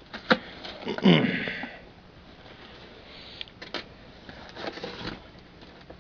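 Cardboard shipping box being opened by hand: packing tape cut and the flaps pulled open, with a loud scrape that falls in pitch about a second in, followed by lighter knocks and rustles of cardboard.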